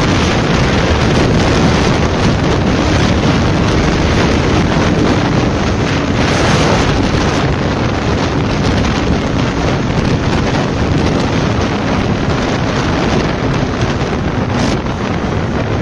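Wind rushing over the microphone of a motorcycle ridden at speed, with the bike's engine running faintly underneath as a steady hum.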